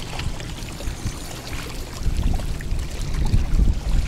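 Wind buffeting the microphone in uneven gusts, over small waves lapping against a stony shore.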